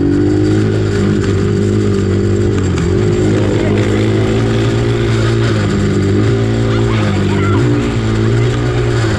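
Dirt bike engine running at a steady throttle while riding, easing off briefly twice and then picking up again.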